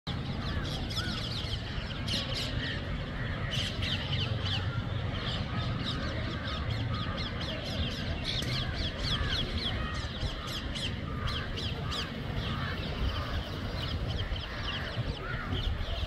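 A large flock of crows cawing overhead: many short calls overlapping without pause, over a steady low rumble.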